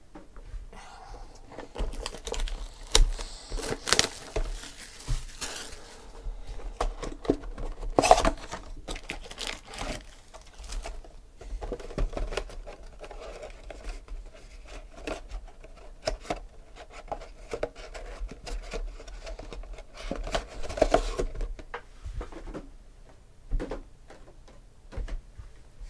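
Foil-wrapped trading-card packs crinkling and tapping as they are handled, shuffled and laid down on a table. They come in irregular bursts with a few sharper knocks.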